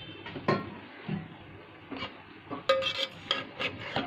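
Steel slotted spoon knocking and scraping against a steel cooking pot while stirring chunks of potato and chicken: scattered metallic clinks with brief ringing, coming thickest about three seconds in.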